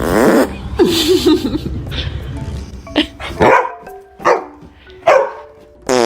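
A dog barking and growling: a loud burst at the start, a wavering growl about a second in, then about four short sharp barks, with light background music underneath.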